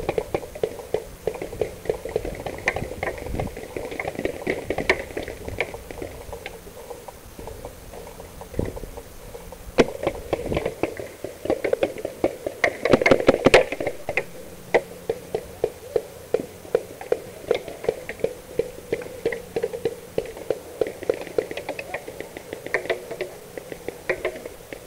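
Paintball markers firing across the field: a string of sharp pops, scattered at first, a dense burst of rapid shots about halfway through, then pops about twice a second near the end.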